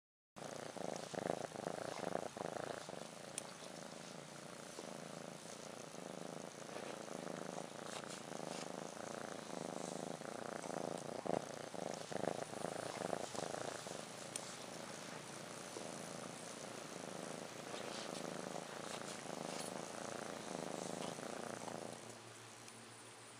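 Kitten purring: a steady pulsing purr in cycles of about a second, with a few sharp clicks over it. The purring stops near the end.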